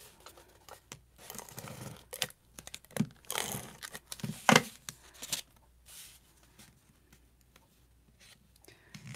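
Cardstock being handled and pressed together on the work surface: a few short rustling strokes and light taps in the first half, then little sound.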